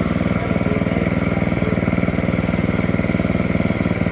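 Engine running steadily at a constant speed, with a fast, even firing beat.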